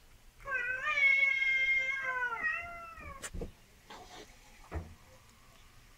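A cat meowing: one long drawn-out meow of about two seconds, then a shorter falling meow, followed by a sharp click.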